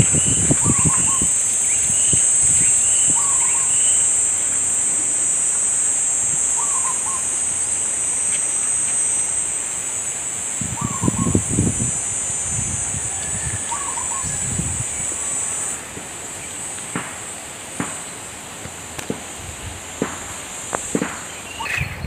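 Steady, high-pitched drone of insects, which drops in level about three-quarters of the way through. Over it, a bird repeats a short call about once a second at first, then every couple of seconds. There are a few footsteps on a dirt path.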